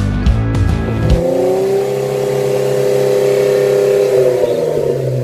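Intro music with sharp beats stops about a second in and gives way to a held engine-like rev sound effect with a hissing rush behind it, part of an animated logo intro. The rev fades out near the end.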